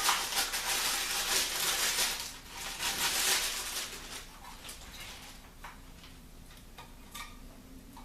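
Rustling and handling of monitor packaging and parts, loud for the first four seconds or so, then quieter with a few scattered light clicks and knocks as the pieces are fitted together.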